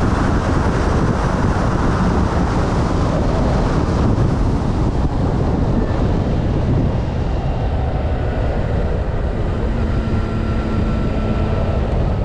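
Wind rushing over the microphone of a moving motorcycle, with the engine and road noise running underneath. The rush eases a little after about six seconds, and a faint engine tone shows through after that.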